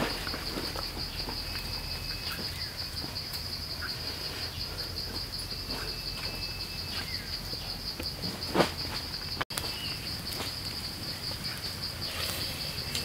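Forest insects trilling in a steady, high-pitched, finely pulsing chorus, with a few faint bird chirps. A single short thump stands out about eight and a half seconds in, and the sound drops out for a moment about a second later.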